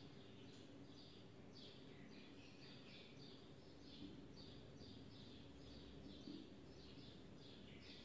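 Faint, quick series of short, high, falling chirps, about two to three a second, from a small bird calling over a low steady room hum.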